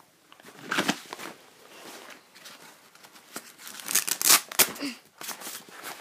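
Rustling and scraping of a typewriter's carrying bag being handled and opened, with a few sharp clicks. The rustling is loudest about four seconds in.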